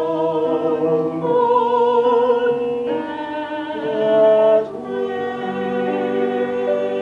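A woman and a man singing a duet in long held notes over an instrumental accompaniment.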